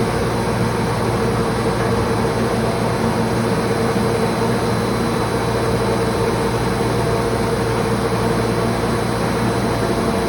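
Cabinet case clamp running in automatic mode as its arms move in toward the cabinet: a steady, even machine hum with a constant tone that does not change.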